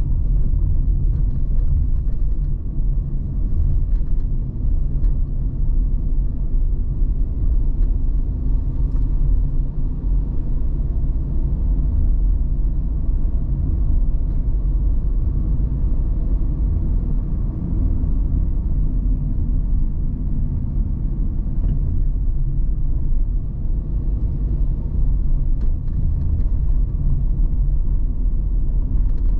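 Steady low rumble of a car driving at an even pace, its road and engine noise heard from inside the cabin.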